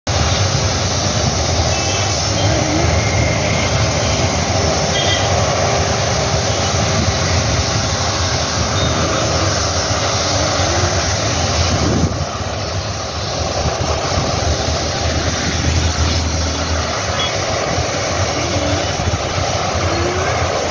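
Busy road traffic passing close by: a steady rumble of car, motorbike and truck engines and tyres, dipping slightly about halfway.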